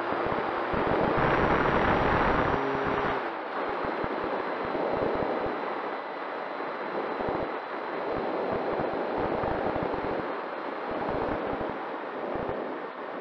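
Wind rushing and buffeting over the onboard camera microphone of an E-flite Air Tractor RC plane in flight, with the faint whine of its electric motor and propeller. The whine steps higher about a second in, the loudest stretch, and drops back about three seconds in.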